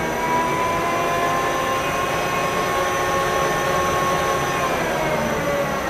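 Acer 1440V lathe running on its variable-speed spindle drive: a steady mechanical whine with several tones. The pitch rises in the first half second, holds, then falls from about four and a half seconds in as the spindle speed is changed.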